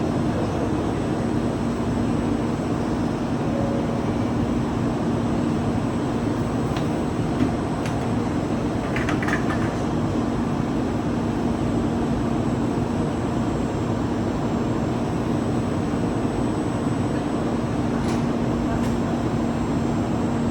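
Steady rushing noise of a Shinkansen train standing at the platform, with a constant low hum and a few faint clicks.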